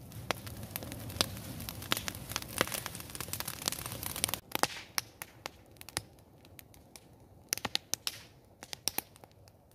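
Open fire of dry leaves and stalks crackling and popping over a steady rush of flame. After about four and a half seconds the rush drops away and the pops come sparser.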